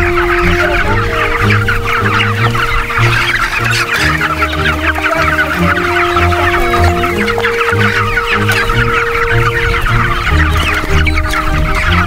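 A flock of chickens clucking in a dense, continuous chatter, over background music with held melody notes and a bass line.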